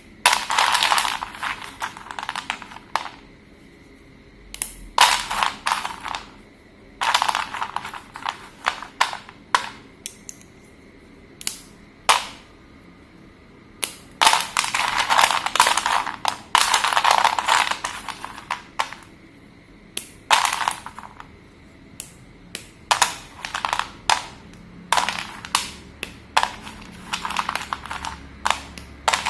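Slate pencils crunching and crumbling as they are broken, in several clusters of sharp crackles with short pauses between.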